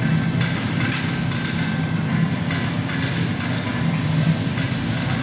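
Steady low mechanical hum of a running ice-cream freezer's refrigeration unit, with a thin high whine and faint light clicks scattered through it.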